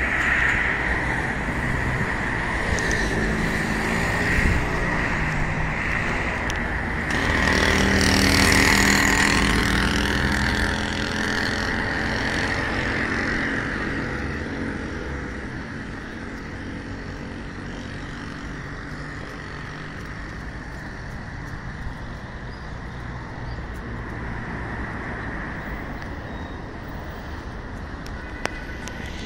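Road traffic: a car's engine passes by, loudest about eight or nine seconds in, then fades to a quieter steady traffic background. A steady high-pitched hum runs underneath.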